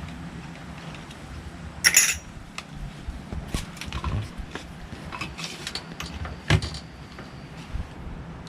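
Clinks and knocks of small hard items, such as tools and fittings, being handled and set down, with the loudest clink about two seconds in and another sharp knock about six and a half seconds in, over a steady low background hum.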